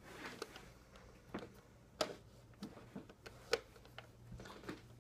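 Scattered light clicks and taps as a plastic makeup palette case is handled, about nine in irregular succession, the sharpest a little after three and a half seconds in.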